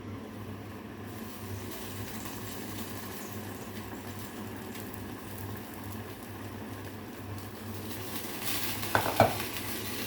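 Chicken masala sizzling in a pan, a steady hiss of frying. About nine seconds in, a few sharp clanks of a utensil against the pan.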